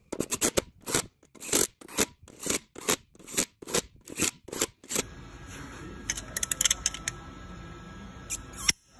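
Cordless impact driver run in about a dozen short bursts, roughly two a second, each driving down one beadlock-ring bolt on a UTV wheel. After that comes a steady low hum with a few sharp clicks, and a louder click near the end as a torque wrench is worked on the lug nuts.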